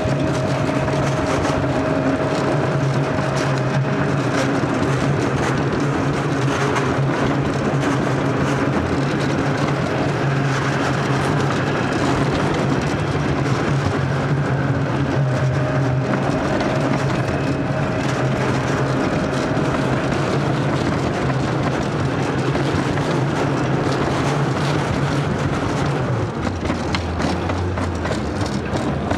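Summer toboggan sled running down a stainless-steel trough: a steady rumble of the wheels rolling in the metal channel with a low hum that drops in pitch near the end.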